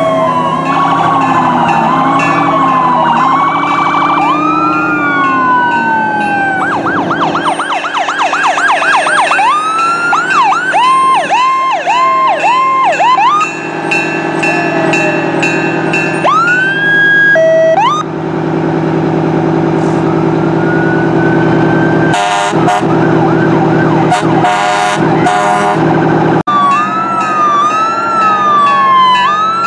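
Several fire truck sirens sounding at once, slow rising and falling wails changing to rapid yelps and back, over a steady low drone.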